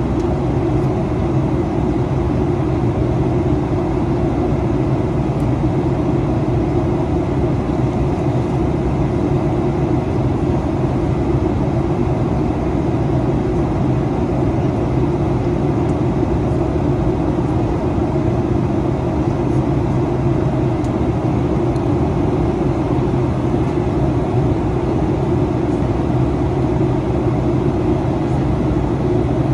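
Steady cabin noise heard inside a Boeing 737-800 in flight: the even rush of air along the fuselage together with the constant hum of its CFM56 turbofan engines, with a low drone that doesn't change.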